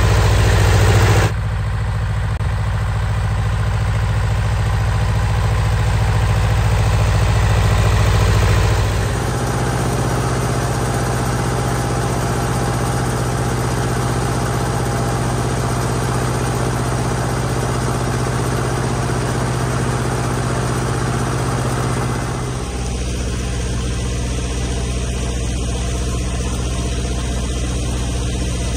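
Eicher 3706 tractor's diesel engine running steadily while it pulls a fertiliser spreader and cultivator through the soil. The engine note changes abruptly about a second in, again around nine seconds and again around twenty-two seconds.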